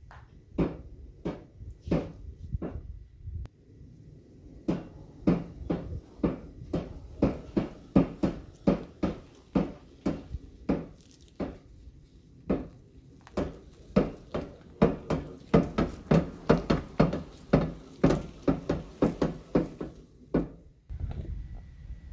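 A long series of sharp knocks in a small room, a little under two a second, each with a short ring. They pause briefly about four seconds in, then come closer together.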